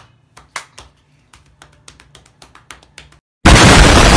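A run of light, irregular taps and clicks, then a short gap, then a sudden very loud blast of harsh, distorted noise near the end.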